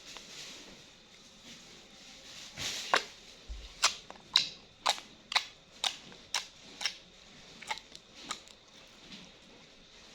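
Slime being squeezed and stretched by hand, giving a run of sharp air-bubble pops, about two a second, starting a few seconds in and stopping shortly before the end.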